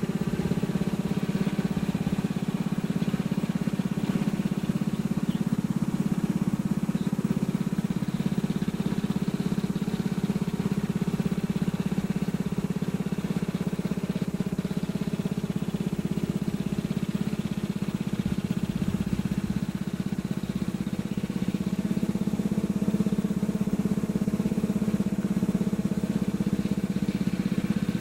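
Riding lawnmower's engine running at a steady speed.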